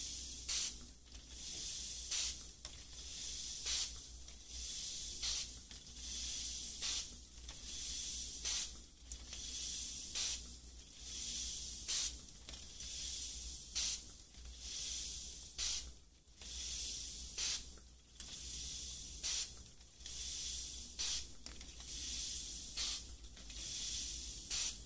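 Slow, regular ASMR strokes on the microphone, about one every one and a half to two seconds. Each is a soft hiss with a short, sharper scratch, the kind of sound made by ear-cleaning tools brushing across a binaural mic.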